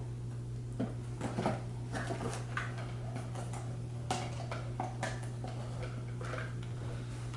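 Small cardboard boxes and packaging being handled on a table: a scatter of short knocks, taps and rustles over a steady low hum.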